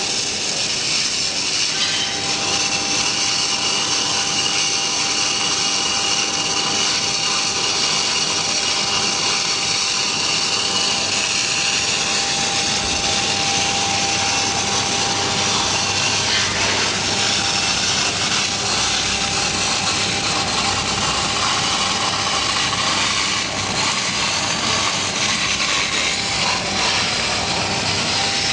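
Shielded metal arc (stick) welding on pipe: the electrode's arc gives a steady crackling hiss that runs on unbroken.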